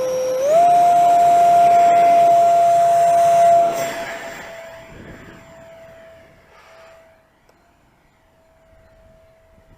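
Electric ducted fan of a foam-board RC jet whining at high throttle. Its pitch steps up about half a second in, holds steady and loud for about three seconds, then the sound fades away over several seconds while the same whine stays faintly audible.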